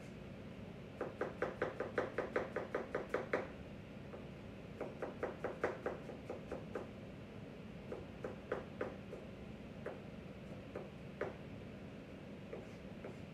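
Kitchen knife chopping vegetables on a cutting board in quick runs of about five strokes a second, then a few scattered single strokes.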